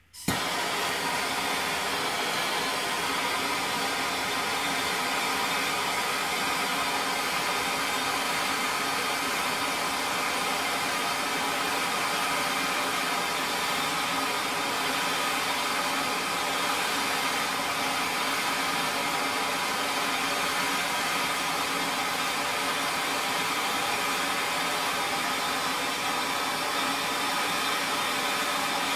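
Hand-held MAP gas torch coming on suddenly at the start, then burning with a steady hiss as it heats an oxidized, seized steel set screw in an aluminum locking pin, to expand it before quenching.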